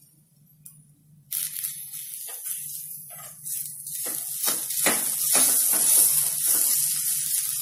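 Mashed-potato filling sizzling in a hot iron kadai as a wooden spatula stirs and presses it. The hiss starts suddenly a little over a second in, and in the second half the spatula scrapes and knocks against the pan in a quick run of strokes.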